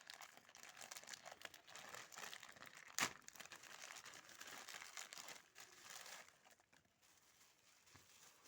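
Packaging crinkling and rustling as it is handled and opened during a watch unboxing, with one sharp click about three seconds in. The crinkling dies down about a second before the end.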